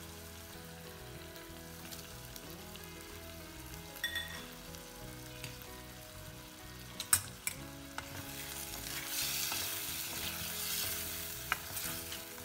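Masala frying and sizzling in a pan while it is stirred, with a few sharp knocks of the spatula against the pan. The sizzle grows louder in the second half.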